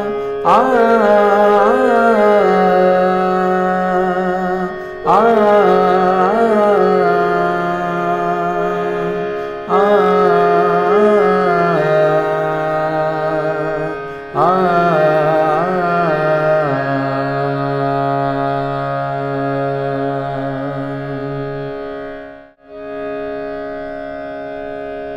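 A man sings a descending alankar without words, the Hindustani sargam exercise just sung in note names, over sustained electronic keyboard notes. He sings four phrases of about four to five seconds each, the voice gliding and stepping down in pitch. In the last several seconds only held keyboard notes sound, broken off briefly and resuming at a different pitch near the end.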